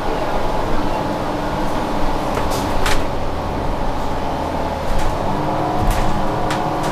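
New Flyer Xcelsior XD40 diesel transit bus heard from inside the cabin while under way. There is a steady engine and drivetrain hum with a few held tones, and several short sharp rattles or clicks, most of them in the second half.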